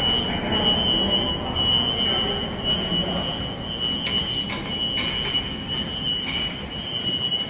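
New York City subway train running with a steady, high-pitched wheel squeal held over a rumble.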